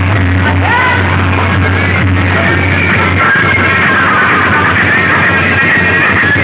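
Loud music played through a large DJ sound-box system, with a strong, steady deep bass under a dense, harsh upper mix.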